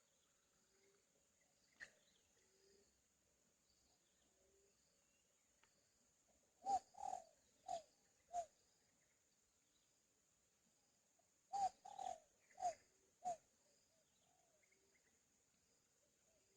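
A bird calling in two phrases of four short notes each, the second phrase a few seconds after the first. A faint steady high insect drone runs underneath.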